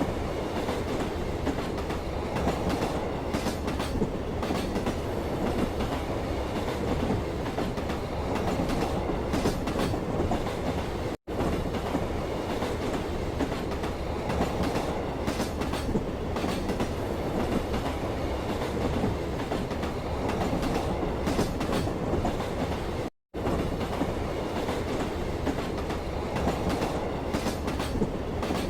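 A train running steadily on rails: a continuous rumble with the clickety-clack of wheels over rail joints. The sound drops out to silence for a split second twice.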